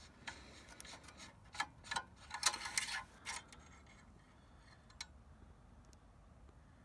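Light clicks and scrapes of hands handling the oil dipstick on a V-twin lawn-tractor engine during an oil check, bunched in the first three seconds or so, then one lone click about five seconds in.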